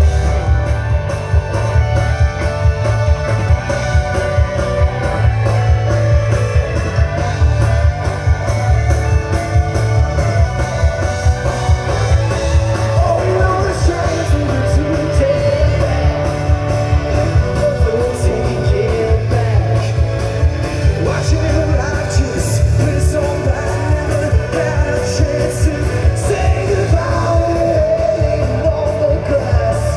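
Live rock band playing a song with vocals, guitar and a steady drum beat over heavy bass.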